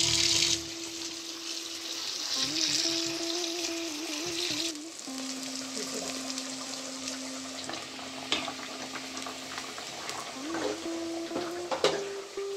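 Food sizzling as it fries in a pan. The sizzle drops away about half a second in, comes back for a few seconds and then fades to a light hiss with a few clicks. A soft instrumental melody plays under it.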